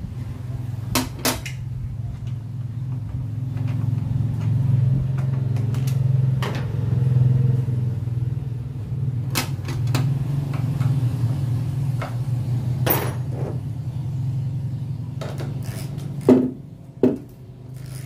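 A steady low engine hum that swells and eases, with sharp metallic clinks of hand tools against the pickup's tailgate hinge hardware, several times.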